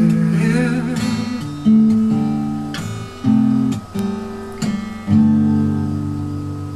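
Acoustic guitar strumming the closing chords of a song: a few separate chords, then a last chord about five seconds in that is left to ring out and fade.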